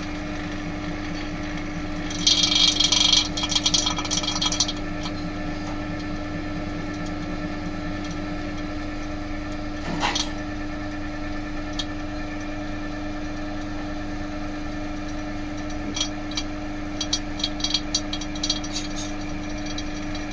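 Air-conditioning service vacuum pump running on test with a steady motor hum. A loud rattle about two seconds in lasts roughly three seconds, there is a sharp click about halfway, and a few short rattles come near the end.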